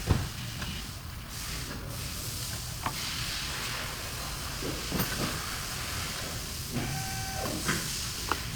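Steady hiss with a knock at the start, a few light clicks and taps, and a brief squeak or tone near the end: the sound of brake bleeding with a pressure bleeder, fluid and air being pushed out at a bleeder screw.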